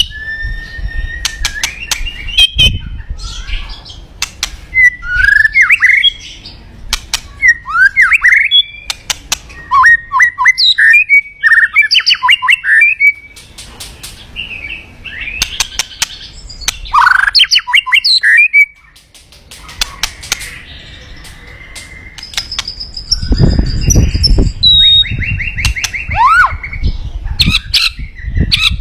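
White-rumped shama (murai batu) singing loudly: a run of varied phrases of fast, sweeping, repeated notes and whistles with short gaps between them. Sharp clicks are mixed in throughout, and a low rumble comes in about three-quarters of the way through.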